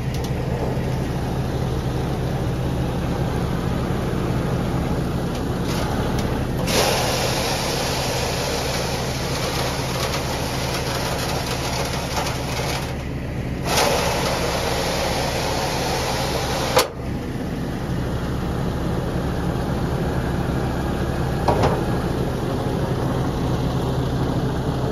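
Renault Premium truck's diesel engine idling steadily, with a few stretches of hiss and one sharp click about two-thirds of the way through.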